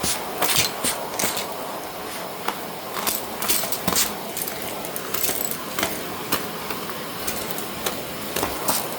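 Shark vacuum cleaner running steadily over a rug, with frequent irregular clicks and rattles as debris is sucked up through it.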